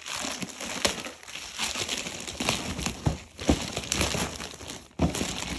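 Plastic poly mailer bag being torn open and crumpled by hand: crinkling and rustling with sharp tearing snaps.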